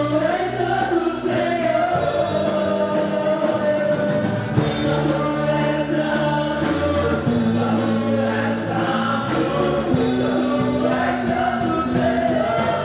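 Gospel choir singing with instrumental accompaniment, held bass notes under the voices.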